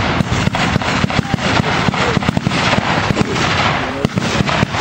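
Battle re-enactors' small arms firing blanks: a rapid, irregular crackle of many overlapping shots, several a second.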